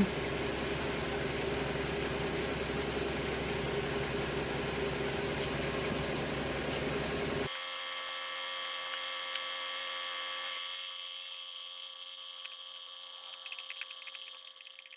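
BMW 328xi's inline-six engine idling steadily, drawn out with a whine, heard from under the car while it warms the transmission fluid. About halfway through the sound drops suddenly to a quieter, thinner hum that fades, with a few faint ticks near the end.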